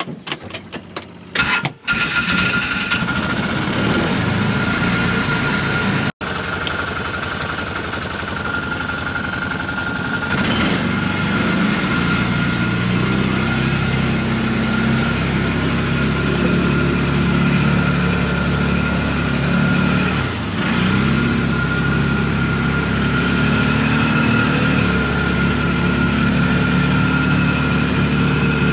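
An engine starts about two seconds in and keeps running, its pitch shifting now and then, with a steady high whine over it.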